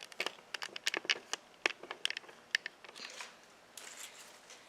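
Hands handling craft materials: a quick run of irregular small clicks and crinkles for about three seconds, then fainter rustling.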